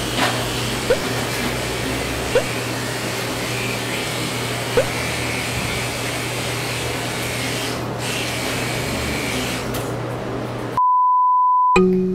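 Electric dog clippers buzzing steadily with a constant low hum as they trim a Pekingese's coat, with three brief squeaks in the first five seconds. Near the end the buzz cuts off and a single steady beep tone sounds for about a second, then plucked guitar music begins.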